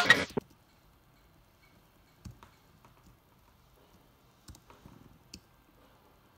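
Music from an OP-1 synthesizer stops abruptly in the first half-second. A few faint clicks of its keys and buttons being pressed follow, about four, in an otherwise quiet stretch.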